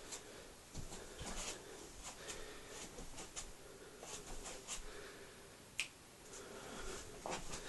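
A series of faint, irregular clicks and ticks, with one sharper click about six seconds in, over quiet room tone.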